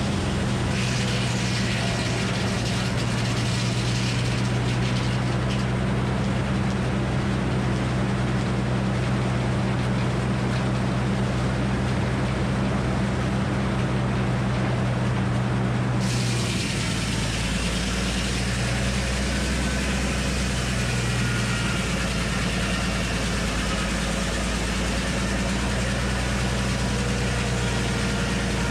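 Frick circular sawmill running steadily as a red oak log is fed past the large circular blade on the carriage: a constant engine-like drone, whose higher sound shifts about halfway through.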